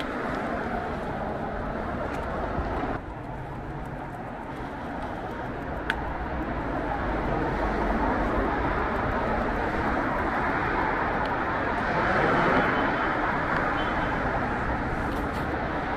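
City street traffic noise, a steady wash of passing vehicles that swells from about halfway through, with a single sharp click about six seconds in.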